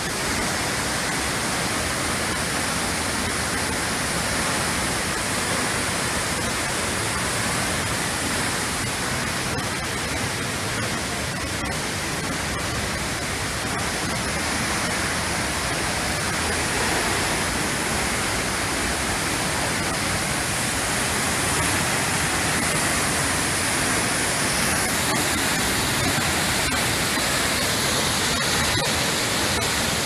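Tall waterfall plunging into a pool: a steady rushing of falling water, getting a little louder past the middle.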